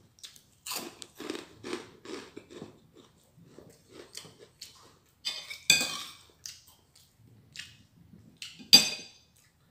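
Chewing food close to the microphone, in a run of rhythmic chews about two a second, with two sharp clinks against a dish, the loudest just before the end.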